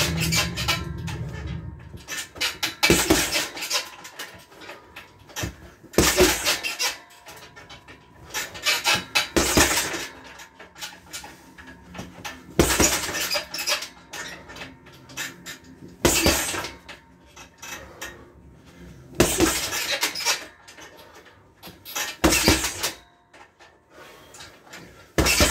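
Boxing gloves punching a heavy bag with jab-cross combinations: a quick pair of hits about every three seconds, with quieter sounds between the combos.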